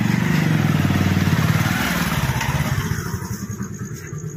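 Motorcycle engine running close by, then easing down and getting quieter about two and a half seconds in.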